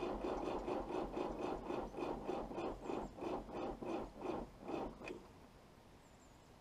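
Perkins 4.236 four-cylinder diesel in a JCB 1400B backhoe being turned over by its starter on a cold start: a steady pulsing of about three compression strokes a second for about five seconds. It stops suddenly without the engine catching.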